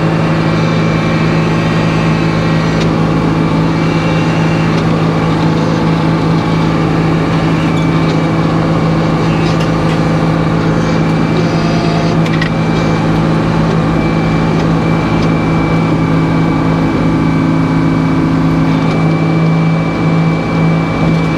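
Sawmill's engine and hydraulics running at a steady drone with a low hum, with a few light knocks as the log is turned on the carriage.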